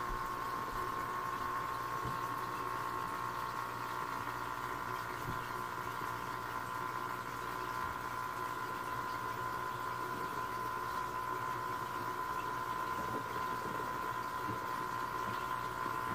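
Aquarium pump running with a steady hum over an even wash of moving water.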